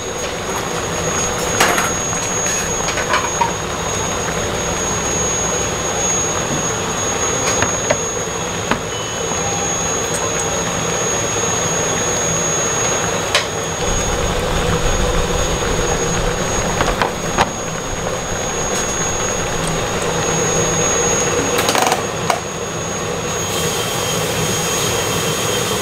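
Restaurant kitchen noise: a steady mechanical roar with a thin high whine, and a few short clinks of dishes and utensils now and then.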